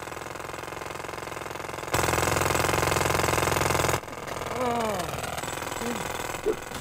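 Cartoon road-works sound: a portable air compressor running steadily, with a pneumatic jackhammer hammering loudly in a rapid rattle for about two seconds, stopping abruptly about four seconds in.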